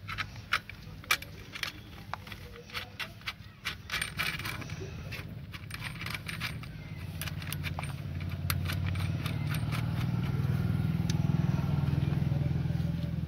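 Small metal clinks and clicks as steel washers and a bolt are handled and fitted through a pipe clamp on an HDPE pipe, quick and irregular for most of the time. From about four seconds in, a low engine rumble builds and becomes the loudest sound.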